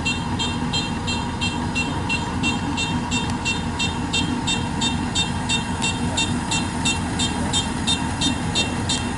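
Kubota DC-93 combine harvester running steadily under load, with a high electronic beep repeating rapidly, about four times a second.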